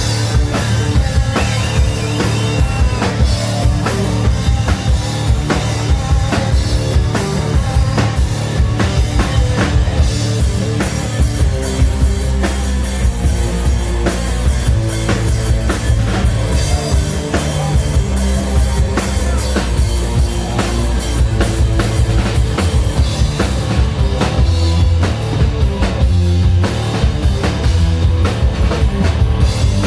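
Live melodic hard rock band playing at full volume, with the drum kit coming in right at the start over the guitars and bass.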